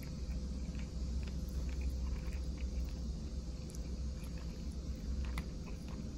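Faint scattered clicks and scrapes of a metal fork working at chicken and rice in a plastic bowl, over a steady low rumble.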